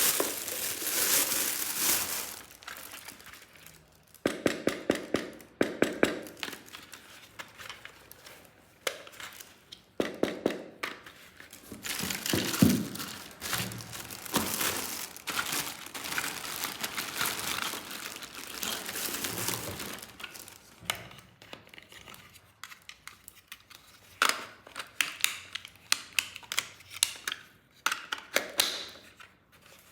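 Plastic packaging crinkling and rustling in bursts as toys are unwrapped, with many short clicks and knocks from plastic toy parts being handled.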